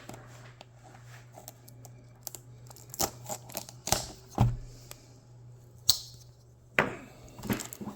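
Handling a cardboard box of trading-card packs: scattered clicks and taps with a few sharper knocks, and one brief scrape about six seconds in.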